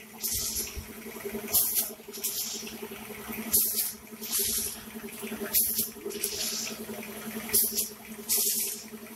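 Automatic vertical form-fill-seal snack pouch packing machine running, with a steady motor hum. About every two seconds, once per pouch, comes a sharp pneumatic air hiss, followed half a second later by a softer one.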